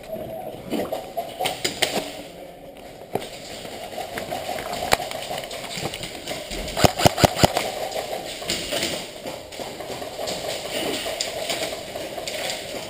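Airsoft guns firing: scattered sharp snaps, with a quick string of about four shots about seven seconds in.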